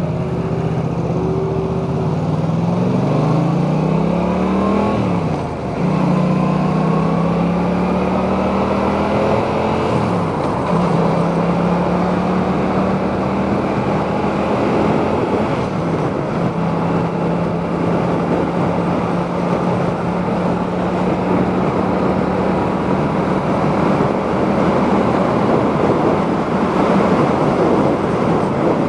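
Yamaha MT-07's parallel-twin engine heard from inside a full-face helmet while riding. The revs climb steadily, then drop with an upshift about five seconds in, again briefly around ten and sixteen seconds in, and settle into a steady cruise. Wind and road rush run underneath.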